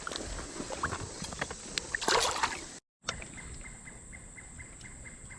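Creek water splashing and sloshing with small clicks, the loudest swish about two seconds in. It cuts off suddenly, and then quieter creek ambience follows with a faint, evenly repeating insect chirp.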